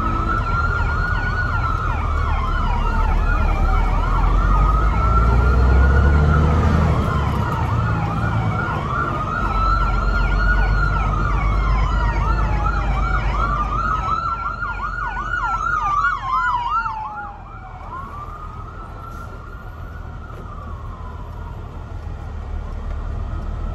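Emergency vehicle siren heard from inside a semi-truck cab: a slow rising-and-falling wail repeating every four seconds or so, switching to a fast yelp about fourteen seconds in, then back to a fainter wail. Under it runs the low rumble of the truck's engine.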